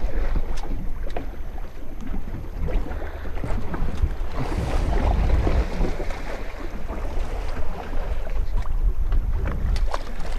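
Wind buffeting the microphone over water sloshing against a small boat's hull, with a few small knocks and a brief louder splash of water about halfway through.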